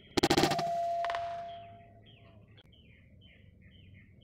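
PR900 PCP air rifle firing: a sharp report with a metallic ringing tone that fades over about two seconds, and a second knock about a second after the shot. Small birds chirp through the second half.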